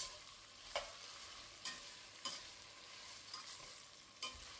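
Metal slotted spoon stirring chopped vegetables frying in oil in a stainless steel pressure cooker: a faint, steady sizzle with several sharp clinks of the spoon against the pot.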